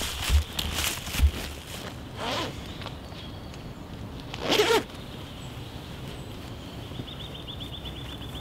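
Two short zipper pulls about two seconds apart, after a few low knocks. A fast high trill starts near the end.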